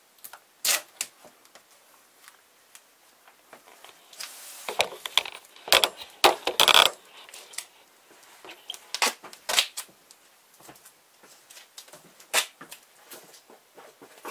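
Tape being handled: sharp clicks and knocks throughout, with a stretch of tearing and crackling about four to seven seconds in as a strip is pulled and torn, then pressed on.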